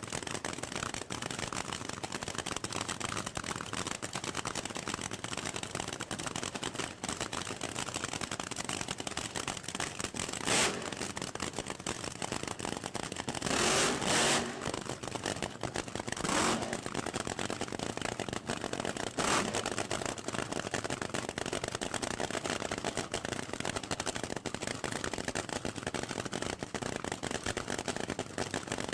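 Supercharged nitro V8 funny car engines idling with a steady crackling rumble, with several short sharp throttle blips through the middle, the longest about a second long.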